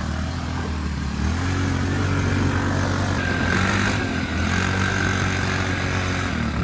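ATV engine running under way, its pitch rising about a second in and then holding steady, with a steady high whine joining about three seconds in.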